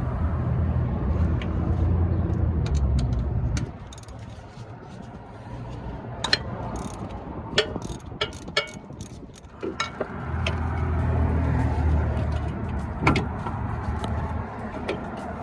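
A car running, with a steady low hum that drops away after about three and a half seconds and returns about ten seconds in. In between, a quieter stretch with scattered clicks and knocks.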